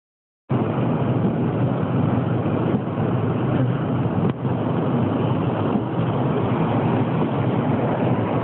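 Steady road and engine noise inside the cabin of a moving car, a constant low rumble.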